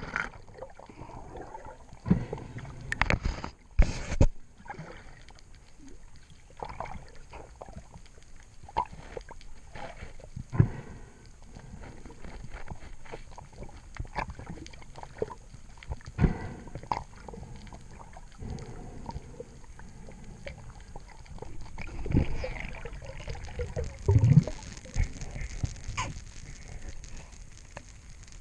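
Water sloshing and gurgling, with irregular knocks and clicks scattered throughout and a few louder thuds.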